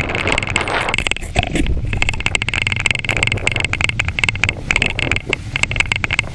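Bicycle rolling over paving tiles, its front basket and frame rattling with a dense run of clicks, over the rumble of wind on the microphone.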